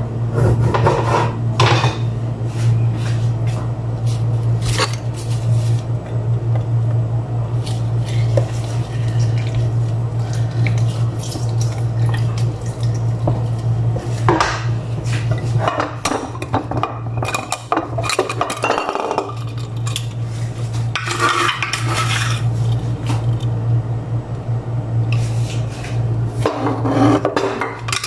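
Dishes and utensils clinking and knocking against a plastic basin and the counter during food preparation, with a few short spells of scraping or rustling. A steady low hum runs underneath.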